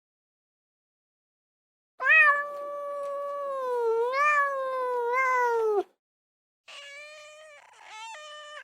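Kitten meowing: one long, drawn-out, high-pitched meow with wavering pitch starting about two seconds in, then a second, quieter meow near the end.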